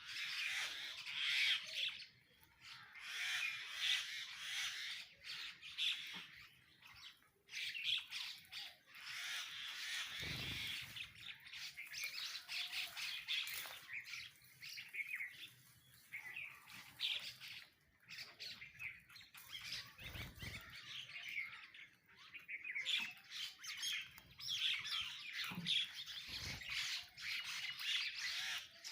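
A crowd of sparrows and mynas chirping and squawking in a continuous, overlapping chatter, with a few brief low thuds.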